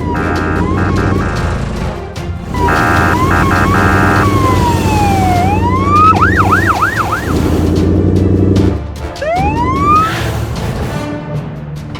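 Cartoon soundtrack: background music with short repeated chord stabs, joined by siren-like sliding whistle tones that fall, rise and then wobble quickly up and down, followed by two rising swoops near the end.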